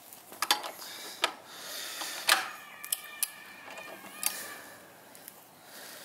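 Ratchet wrench clicking in short, irregular strokes as it threads a motorcycle's front axle into the fork.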